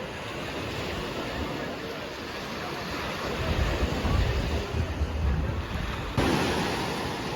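Sea waves washing onto a sandy beach, with wind buffeting the microphone heavily from about halfway through; the sound changes abruptly near the end.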